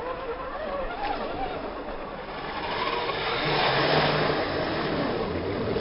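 Scale RC pickup truck driving through mud and water: its motor whines, rising and falling with the throttle, over splashing from the spinning tyres. Louder from about three seconds in, as the truck ploughs through the water.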